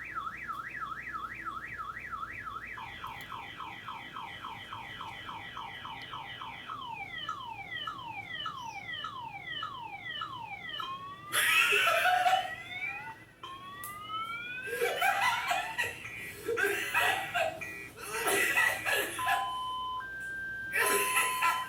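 A man imitating a car alarm with his voice, working through its patterns: a fast up-and-down warble, quick repeated chirps, slower falling and then rising sweeps, and near the end steady beeps that jump between pitches. Loud bursts of laughter break in about halfway through and again a few seconds later.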